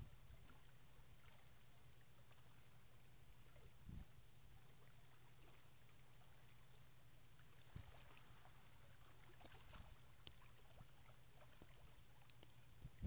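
Near silence: a faint steady low hum under light outdoor ambience, with a couple of soft thumps and a few faint ticks.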